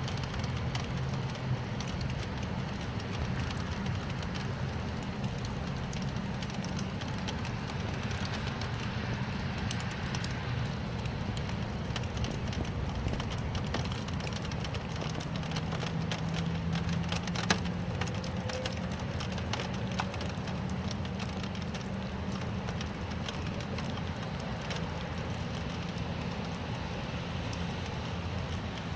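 Steady rain falling, with scattered sharp drop ticks and one louder tick a little past the middle, over a steady low hum.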